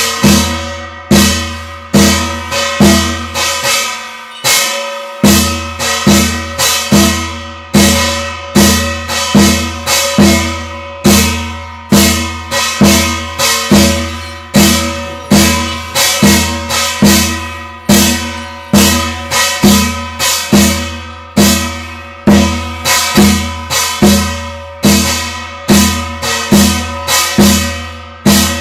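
Korean shamanic ritual (gut) percussion: a deep drum struck in a steady beat about once a second, each stroke joined by bright clashing metal, cymbals or bells. The beat breaks off briefly about four seconds in, then carries on.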